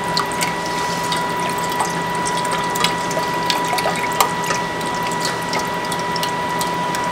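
Hand-cranked can opener working its way around a large can, a run of irregular clicking and ratcheting over a steady background hum.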